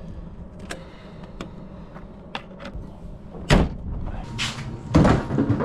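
A few light clicks, then a door slamming shut about three and a half seconds in, followed by two more heavy knocks near the end, over a low steady hum.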